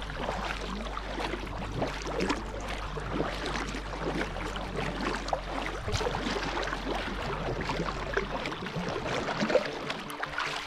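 Kayak paddle dipping and pulling through the water with each stroke, and water splashing and rushing along the hull of the moving kayak.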